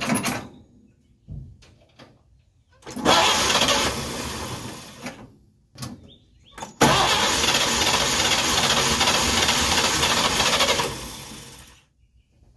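1953 Chevrolet 3800 truck's straight-six engine cranking on the starter in two tries, a shorter one about three seconds in and a longer one about seven seconds in, each winding down at the end. The engine turns over but does not catch; it acts like it wants to fire.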